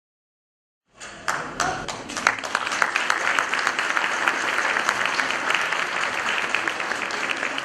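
Audience applauding, starting abruptly about a second in after silence and carrying on steadily.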